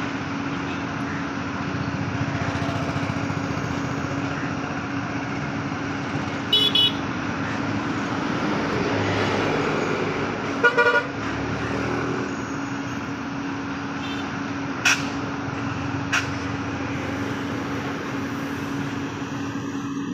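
Freight train of covered steel box wagons rolling past with a steady rumble and a constant low hum. Short horn toots come about a third of the way in and again near the middle, and two sharp clicks follow later.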